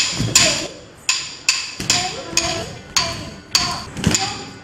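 A wooden stick beating a wooden block in a steady rhythm to keep time for classical dance practice: sharp, ringing clacks about two to three times a second.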